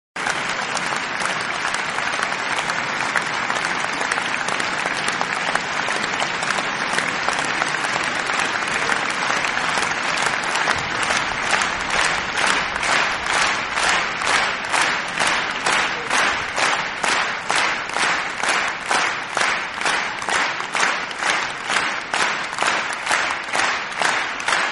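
A crowd applauding: a dense patter of many hands clapping that about halfway through falls into clapping in unison, about two claps a second.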